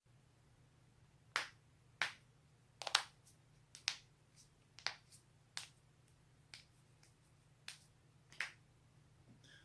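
Spinal joints cracking: a dozen or so sharp pops, irregularly spaced and some in quick pairs, over a faint low hum.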